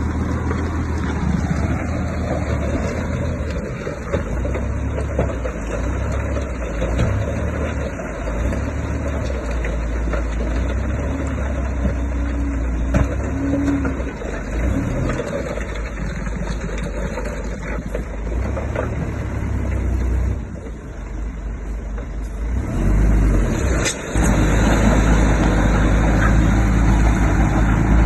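Diesel engines of heavy earthmoving machinery, a bulldozer and dump trucks, running under load with a deep rumble that rises and falls as they work. Three-quarters of the way through it dips briefly, then comes back louder and harsher.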